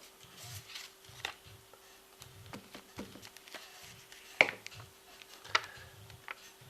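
Paper and card being handled and pressed down on a table: scattered taps and rustles, the two sharpest taps about four and a half and five and a half seconds in.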